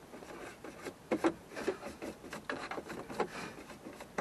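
Plastic gauge-cluster trim of a 1991 Mazda Miata being worked into the dash by hand: irregular light plastic clicks and knocks with rubbing and scraping between them.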